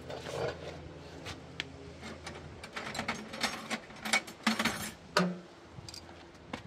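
Irregular clicks, scrapes and rattles of hand work as a shimpaku juniper is being tied down into a stone pot, busiest and loudest a little past the middle.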